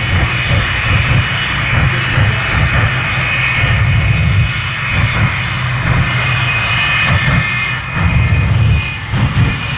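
The Shockwave jet truck's three jet engines running at full power as it races down the runway: a loud, steady roar with a deep rumble that surges and a thin whine over it.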